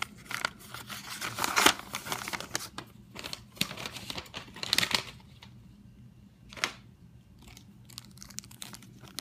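Paper and plastic packaging rustling, crinkling and tearing as a mailed item is unwrapped by hand, in dense bursts for about five seconds, then one more short burst and a few faint crinkles.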